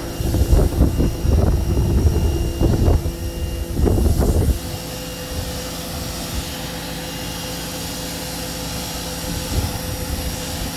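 Electric pressure washer running with a steady hum. For the first four and a half seconds a loud, irregular low rumble lies over it, then the hum goes on alone.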